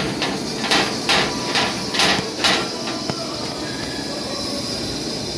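Sharp metallic clicks and knocks, about two a second for the first few seconds, from a refrigeration gauge manifold and its hoses being handled while it is set to charge liquid refrigerant. A steady hiss runs under them.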